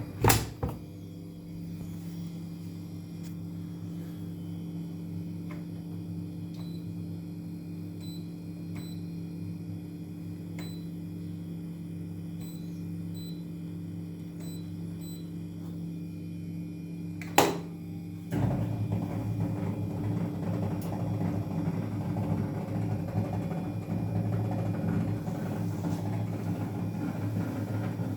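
Worn Frigidaire appliance drain pump running with a steady electric hum, then about 18 seconds in it turns louder and rougher with a rattling, grinding noise, the sign of a worn-out pump. A couple of sharp clicks come at the start and just before the change.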